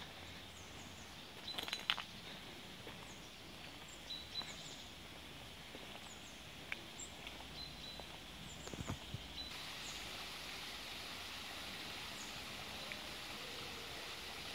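Faint woodland ambience: short bird chirps now and then, a few footsteps on stone paving, and a steady hiss that grows louder about ten seconds in.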